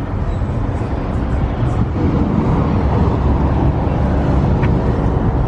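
Car engine running, a steady low rumble.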